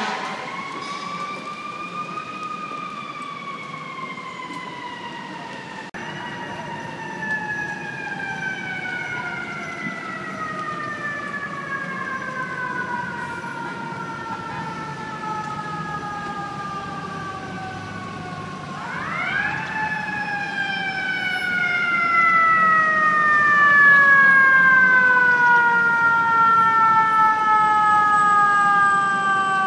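Fire truck's mechanical siren wailing over city traffic in long, slow falling tones. About 19 s in it spins up quickly, then winds down slowly again, growing louder as the truck approaches.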